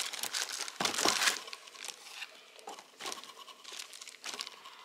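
Plastic shrink-wrap and packing material crinkling and rustling as a plastic-wrapped box is handled inside a cardboard shipping box, loudest about a second in, then thinning to scattered, fainter crackles.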